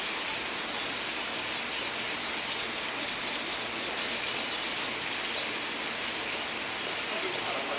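Tteokgalbi (minced short-rib patties) sizzling steadily on a hot flat-top griddle: an even hiss of frying fat and steam.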